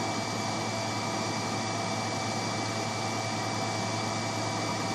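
Steady whir of a Solidoodle Press 3D printer's cooling fan running, a thin high whine over a low hum.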